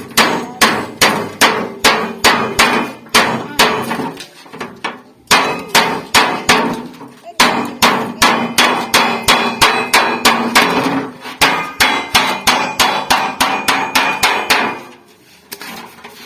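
Hammer blows on refrigerator sheet metal being shaped into a pot, about three strikes a second, each with a short metallic ring. The hammering pauses briefly twice, about four and seven seconds in, and stops near the end.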